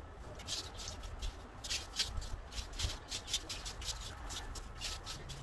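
Broom sweeping dry orange-tree leaves across dirt ground: repeated scratchy brushing strokes, a few a second.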